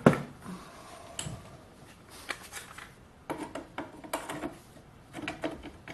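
Irregular metal clinks, taps and scrapes of a freshly lathe-turned metal piece being handled and checked for fit in the shovel's handle tube, with a sharp clack right at the start.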